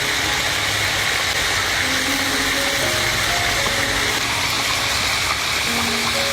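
Background music, a slow melody of held notes, over a steady hiss.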